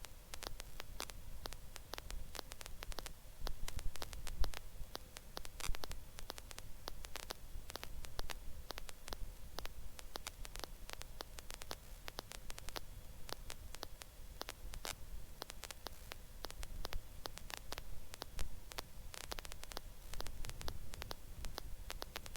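Helicopter intercom audio between transmissions: a faint hiss crossed by frequent crackling clicks, with a low rumble underneath.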